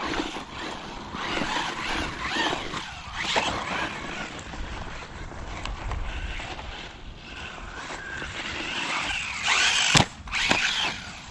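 Electric motor of a 1:12 Rlaarlo AM-D12 RC desert buggy whining up and down in pitch as it is throttled on and off, with its tyres scrabbling on loose dirt. Near the end a sharp, loud crash as the buggy hits the ground and tumbles, followed by a smaller knock.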